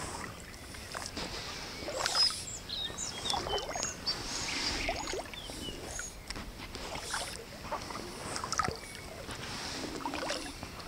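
Kayak paddle strokes in river water as a packraft is paddled: irregular splashes and drips from the blades.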